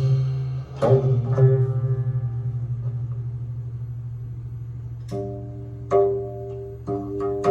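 Geomungo and yanggeum duet music: notes struck about a second in ring and slowly fade over a low held note, then new notes come in about five seconds in and grow busier toward the end.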